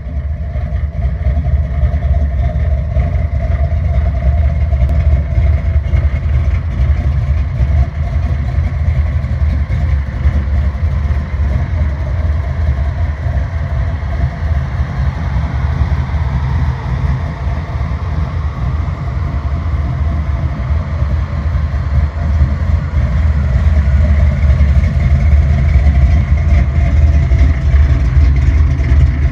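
Supercharged engine of a Dodge Dakota race truck idling steadily with a deep, low exhaust note, getting a little louder in the last few seconds.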